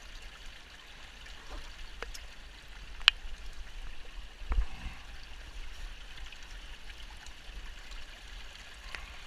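A shallow, rocky creek running steadily close by, a continuous hiss of water over stones. A single sharp click about three seconds in, and a low thump a second and a half later, from handling gear on the bank.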